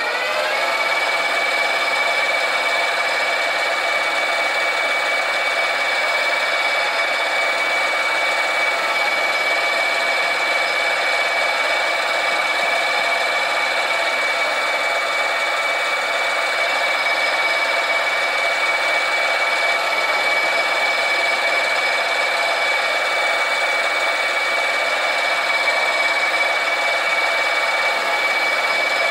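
Sieg mini lathe running with its spindle turning a mild steel bar: the motor and gear whine rises as it spins up at the very start, then holds steady and high-pitched, while the tool faces the bar's end.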